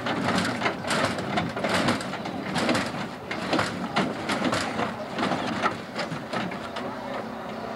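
Lowrider mini pickup's hydraulic suspension hopping the front end: a run of irregular clicks and clanks, several a second, over a faint steady hum.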